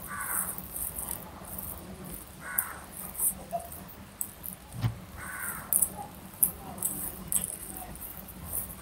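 A crow cawing three times, the harsh calls about two and a half seconds apart, over the soft clicks and smacks of close-up chewing, with one sharp knock about halfway through.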